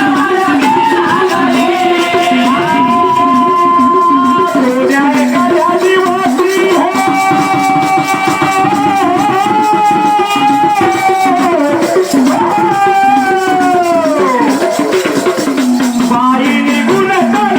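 Devotional song music: a melody of long held notes with pitch slides over steady rattling percussion.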